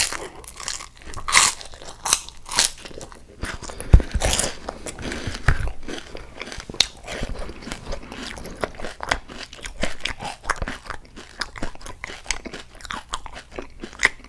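Close-miked eating: a person biting, crunching and chewing food, with many irregular crackly crunches and a heavier thump about four seconds in.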